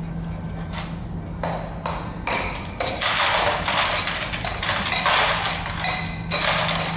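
A metal rod knocking and scraping inside the steel cylinder of an aggregate crushing test mould, breaking out the crushed stone so that it rattles onto a steel tray. The knocks start about a second and a half in and come thick and fast, ringing metallically, then ease off near the end.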